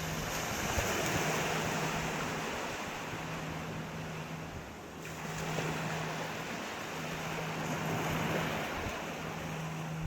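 Sea waves washing onto the shore, the noise of the surf swelling and ebbing, with a fresh surge of breaking water at the start and again about halfway through. A faint steady low hum runs underneath, broken now and then.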